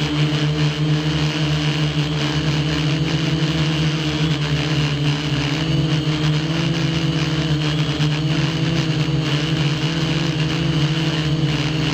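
F450 quadcopter's motors and propellers buzzing steadily in flight, heard from the camera carried on the drone; the pitch of the hum wavers slightly as the motors adjust speed.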